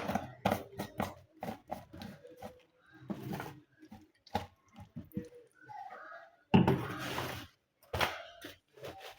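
Household handling sounds: irregular knocks and clicks of objects being picked up and set down, with a louder rustle about two-thirds of the way through.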